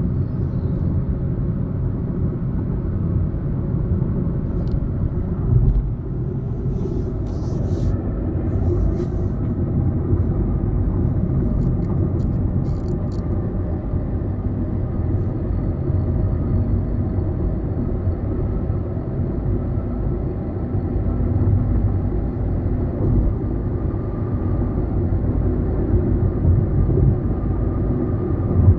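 Tata Altroz 1.2-litre naturally aspirated car on the move: a steady low engine and road rumble, with a few faint short clicks about a quarter of the way through and again a little before the middle.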